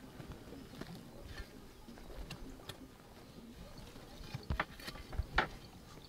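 A few light clicks and knocks over quiet outdoor background noise, the sharpest ones coming close together about four and a half to five and a half seconds in.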